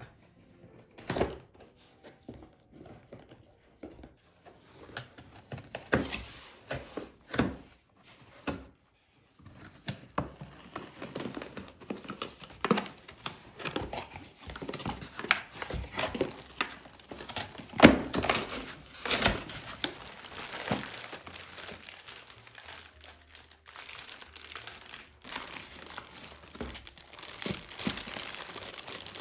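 Packaging being handled while unboxing: plastic wrap crinkling, with cardboard and foam inserts rustling and knocking. Scattered knocks and rustles at first, then steadier crinkling.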